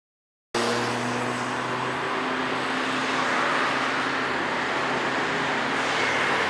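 Street traffic noise cutting in suddenly about half a second in: a steady wash of passing vehicles, with a motor vehicle's engine hum that fades out after the first couple of seconds.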